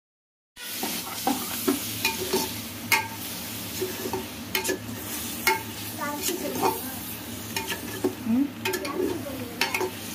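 A perforated steel skimmer stirring boiled mutton pieces into onion-tomato biryani masala in a metal pot on the stove, scraping and clinking against the pot many times over a steady sizzle of the masala frying. It starts about half a second in.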